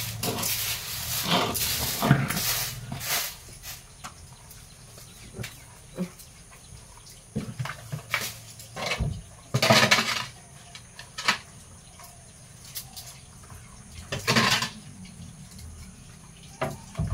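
A cowshed floor being cleaned of cow dung with a broom and water: a quick run of swishing, splashing strokes in the first few seconds, then scattered single swishes.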